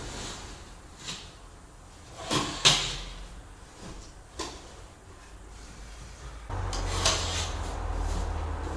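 Several separate wooden knocks and clatters, the loudest about two and a half seconds in, as floor-building materials are handled. About six and a half seconds in, a low steady hum starts and runs on under a further knock.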